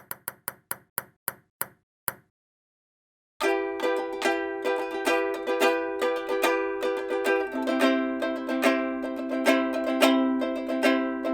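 A run of short, sharp clicks spaced further apart toward the end, then a brief silence. After that, a 21-inch mahogany plywood ukulele (Soidin SK2122N) is strummed in a steady rhythm of ringing chords, changing chord about halfway through.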